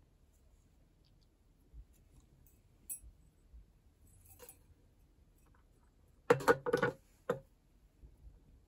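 Small clicks of brass wire and pliers being handled at a steel bench anvil, then a quick cluster of loud metallic knocks about six seconds in, with one more knock half a second later.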